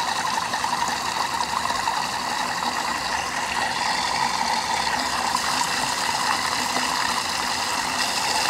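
Thermomix running steadily, its blade mixing pancake batter of milk, flour and eggs with melted butter.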